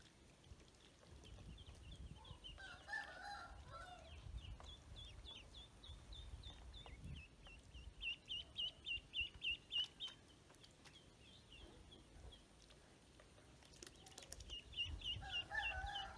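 Ducklings peeping: runs of short, high chirps, rising to a fast string of several a second about halfway through and again near the end. Twice, a lower, rougher bird call sounds alongside them.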